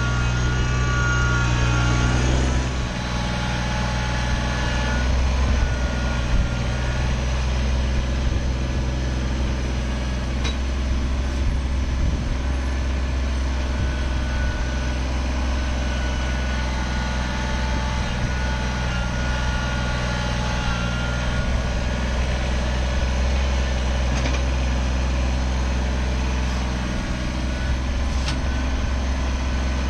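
Kubota BX25 sub-compact tractor's three-cylinder diesel engine running steadily. Its note shifts slightly about two and a half seconds in.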